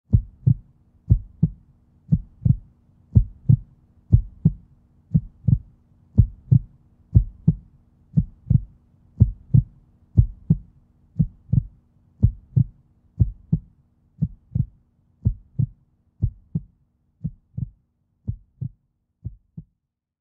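Heartbeat sound effect: a steady lub-dub double thump about once a second over a faint hum, slowing and fading out near the end.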